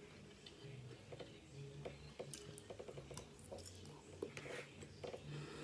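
Faint eating sounds: quiet chewing, with a few scattered soft clicks of a fork against the plate.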